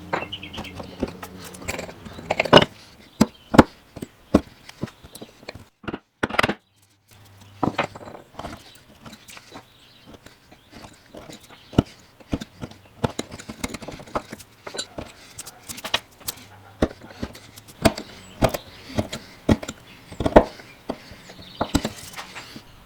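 Irregular sharp taps and knocks of hand tools working a walnut slab for a bow tie inlay, some strokes louder than others, with a brief pause about six seconds in.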